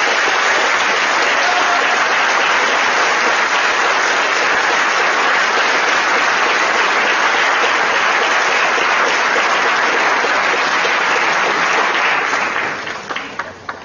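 Audience applauding in a hall, steady and loud, dying away over the last two seconds into a few scattered claps.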